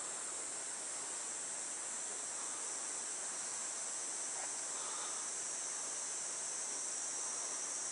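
A steady, high-pitched insect chorus: an even shrill drone with no break, over a faint background hiss.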